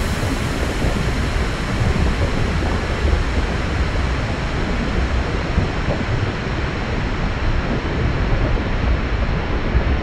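Volcano eruption sound effect: a continuous, dense rumble, heaviest in the deep lows, with no separate blasts.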